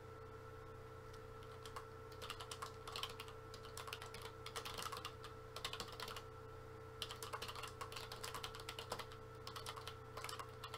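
Quiet, rapid typing on a computer keyboard. Runs of fast keystrokes start about two seconds in, with a short pause past the middle, over a faint steady hum.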